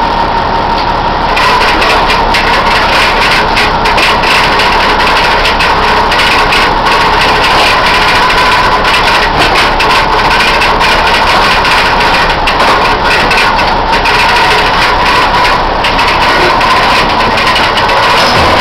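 A commercial gillnet fishing boat's engine and deck machinery running loud and steady, with a constant whine and scattered rattles and knocks.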